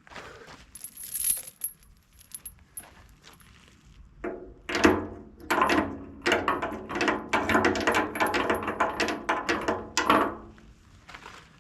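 Steel chains rattling and clanking inside a 1978 Ford F-250's rear steel fuel tank as the tank is shaken with water to knock the rust loose. A few light clinks at first, then from about four seconds in a dense run of rapid ringing metal clanks that stops about a second before the end.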